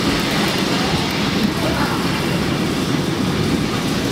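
Historic electric streetcar running along its track, heard from inside the car: a steady rumble of steel wheels on rail.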